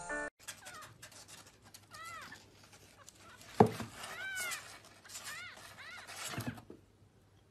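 Kittens mewing: several short, high calls that rise and fall, with a sharp knock about halfway through.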